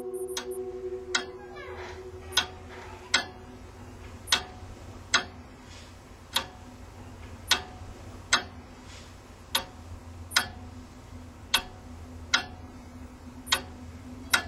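Slow, regular ticking, about one tick a second with slightly uneven gaps, like a clock. Held musical tones fade out in the first two seconds.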